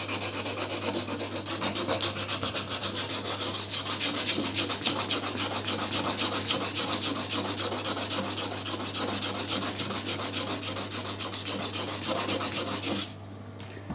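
Steady abrasive rasping of sanding down a patched repair on a bathtub surface to take off the lumps, with rapid even strokes that stop abruptly near the end.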